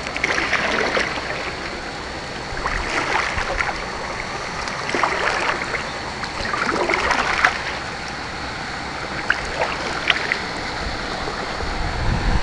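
Kayak paddle strokes in river water: a splash and trickle about every two seconds over a steady wash of water.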